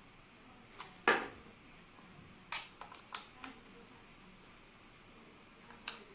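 Small sharp clicks and taps from a screwdriver working on a plastic video doorbell's back panel. The loudest, with a brief ring, comes about a second in, a quick run of four lighter clicks follows a couple of seconds later, and one more comes near the end.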